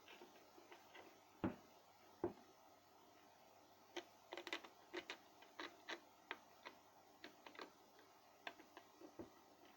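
Faint, irregular clicks and light taps of hard objects being handled, with two louder knocks in the first few seconds and a scatter of small clicks after that.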